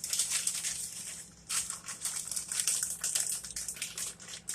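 Rapid crinkling and rustling of cheese and its packaging being handled as the cheese is taken out to top the dish, in two spells with a short lull a little over a second in.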